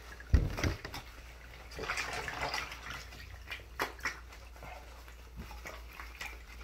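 Bath water splashing in a bathtub as a wet Rottweiler puppy moves about in it, with a sharp thump about a third of a second in and scattered knocks after.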